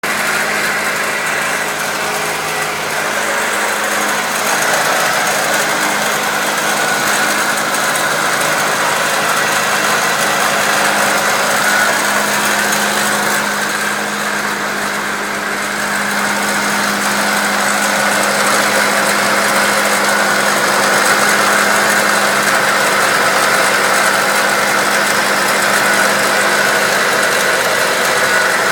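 1999 Acura Integra's four-cylinder engine running steadily, with a rattle coming from the engine bay.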